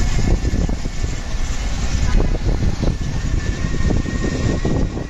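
Vehicle riding along a street: a steady low road rumble with frequent knocks and rattles, and a faint thin high tone above it.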